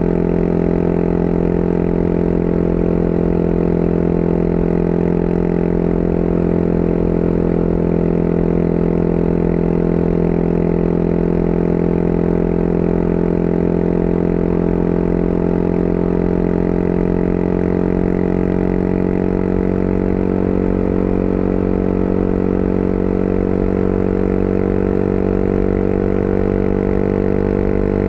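Motorcycle engine running steadily under way, its note shifting slightly in pitch in the last third.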